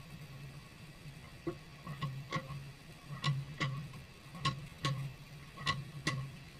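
Rear sway bar link bolt on a Jeep Wrangler JK knocking in its mounting hole, which has ovaled out and lets the bolt move: sharp metallic clicks in pairs, the pairs repeating about every second and a quarter, over a low steady hum.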